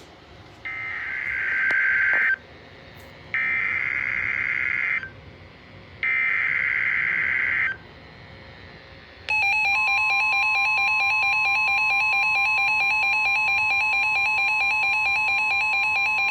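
NOAA Weather Radio Emergency Alert System tones: three bursts of the coded SAME digital header, a harsh buzzy screech each about a second and a half long with short pauses between, then a loud steady attention tone starts about nine seconds in and holds. The tones announce a new flash flood warning.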